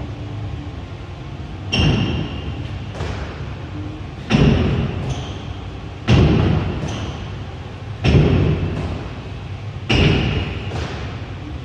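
Background music with a slow, heavy beat: a deep booming hit with a high ringing tone about every two seconds, each one fading away before the next.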